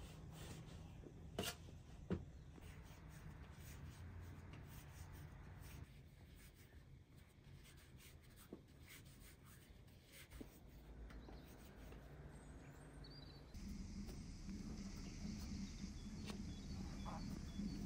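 Hands kneading and rolling floured bread dough for tandoori bread on a metal tray, faint soft rubbing with a few light taps. A steady low hum comes in about two-thirds of the way through.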